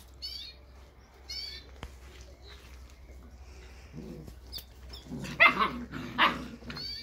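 German shepherd puppies play-fighting: two short high yips in the first second and a half, then louder barks near the end.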